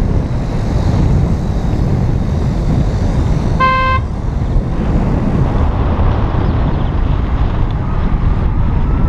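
A car driving, heard as steady wind buffeting and road noise on an outside-mounted camera. One short horn beep sounds about three and a half seconds in.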